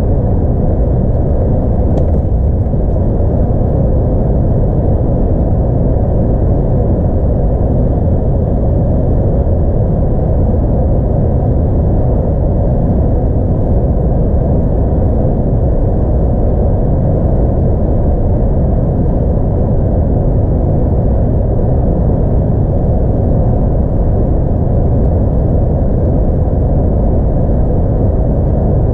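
DAF XF 106 truck's 10.8-litre six-cylinder diesel engine running steadily at motorway cruise with tyre and road noise, heard from inside the cab: a constant low rumble. The truck is heavily laden, about 41.6 tonnes gross.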